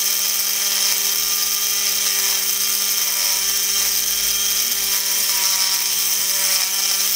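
Electric drill running steadily with a constant whine and high hiss while its bit grinds a hole into a ruby ball.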